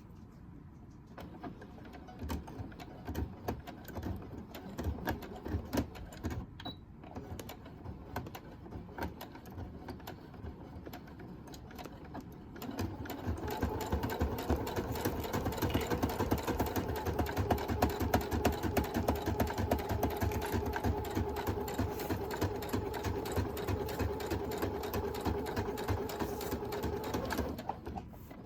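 Sewing machine stitching through faux leather. For the first half it runs slow and uneven in short spurts, then about halfway in it runs steadily at speed with a motor hum, stopping briefly near the end.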